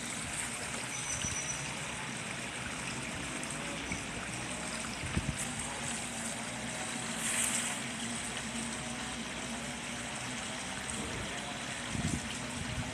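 Steady splashing and rushing of water from a fountain-type pond aerator, with a few faint knocks.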